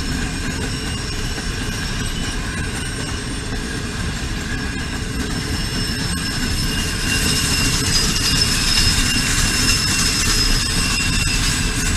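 Express passenger train running past on the track: a steady rumble of wheels on rails with thin high ringing tones over it, growing louder about seven seconds in.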